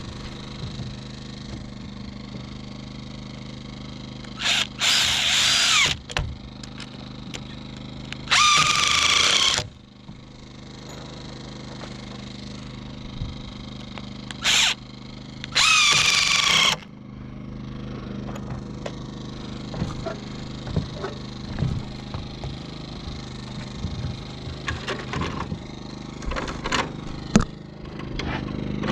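Power drill driving screws into framing lumber in three runs of about a second each, two of them after a short trigger blip, the motor's pitch sagging a little under load. Light knocks and clatter of wood follow near the end, over a steady low hum.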